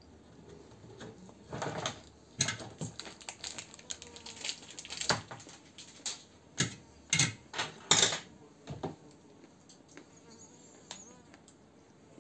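Irregular clicks and clatter of small parts being handled during the repair of a car's horn stalk. Scattered sharp clicks begin about two seconds in and run to about nine seconds, with the loudest cluster near eight seconds. No horn is heard.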